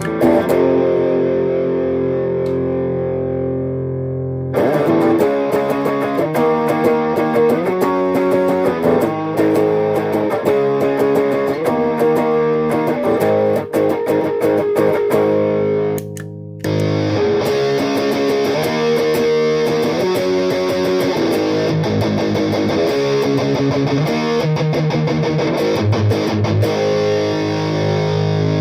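Electric guitar played through a mini effects pedalboard. A chord rings for about four seconds, then a picked riff follows; it stops briefly about sixteen seconds in and comes back with a brighter, fuller tone.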